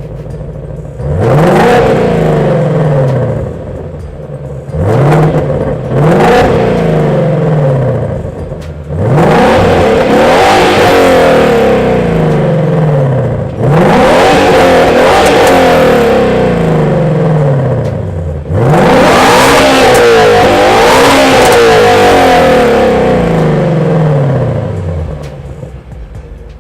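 Ford Mustang Shelby GT350's 5.2 L flat-plane-crank V8 idling and being revved through its performance exhaust. There are about six revs, each climbing quickly and dropping back to idle. The first few are short blips, and the later ones are held for several seconds before it settles back to idle near the end.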